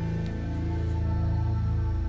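Background music with steady, sustained low notes.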